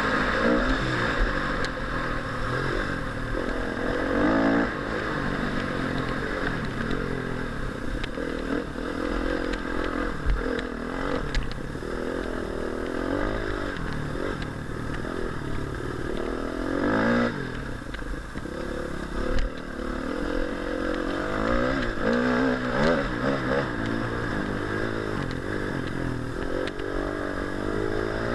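Husqvarna TE 250 R four-stroke single-cylinder enduro bike with a Leovince X3 exhaust, ridden with the engine pitch repeatedly climbing and dropping as the throttle opens and closes. A few short knocks come through along the way.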